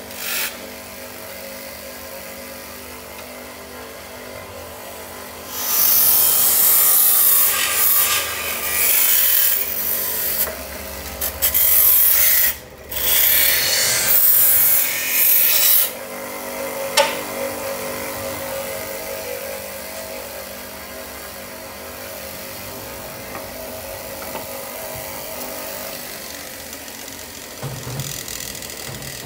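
Harsh abrasive scraping from a handheld power tool working on metal, in several bursts with short breaks over about ten seconds, then only a quieter steady hum.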